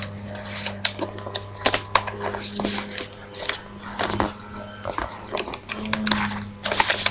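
Origami paper rustling and crinkling in the hands as it is folded and creased, with irregular small crackles and clicks, over a steady low electrical hum.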